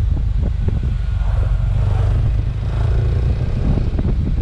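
Kawasaki Ninja 250 SL's single-cylinder engine running steadily as the bike rides along a wet road, under a heavy low rumble of wind on the helmet microphone.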